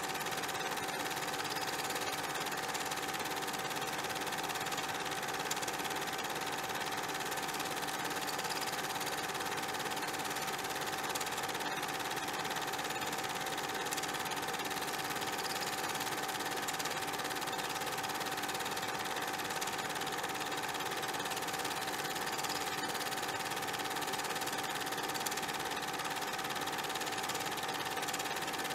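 Steady mechanical whirring hum, unchanging in level and pitch, with a constant high tone over an even hiss.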